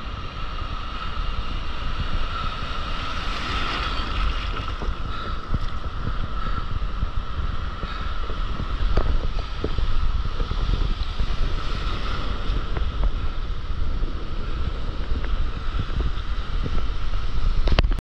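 Ocean surf washing and breaking around a camera held at water level, with heavy wind and water buffeting on the microphone and small splashes throughout.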